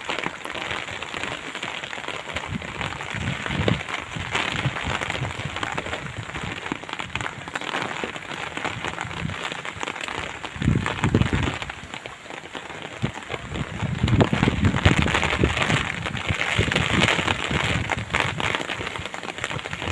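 Steady, crackly noise of water, with louder low rumbling stretches about 11 seconds in and again a few seconds later.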